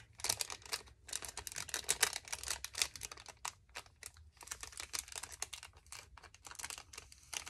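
Craft materials being handled on a tabletop: a rapid, irregular run of light clicks, taps and rustles.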